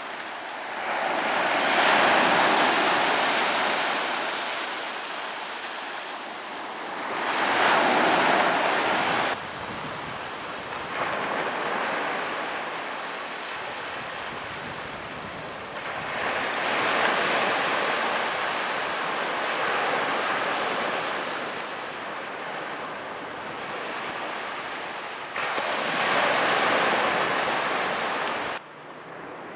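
Ocean waves breaking on a shore, surging and washing back in long swells every several seconds. About a second before the end the surf cuts off abruptly, leaving a steady high cricket chirring.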